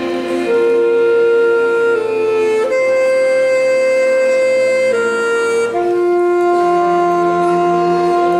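School symphony orchestra, strings and winds together, playing a slow melody in long held notes, each sustained for a second or two before moving to the next.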